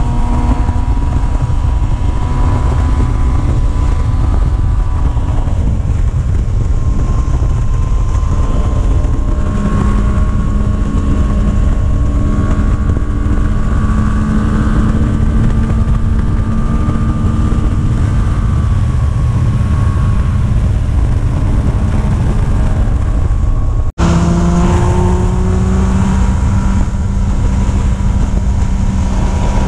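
Motor vehicle engine running under a heavy low rumble while driving, its pitch drifting slowly up and down. The sound breaks off for an instant about three-quarters of the way through.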